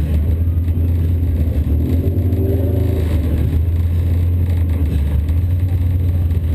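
1988 Honda Civic's four-cylinder engine idling, a steady low drone heard inside the gutted cabin, with a brief rev rising in pitch about two seconds in.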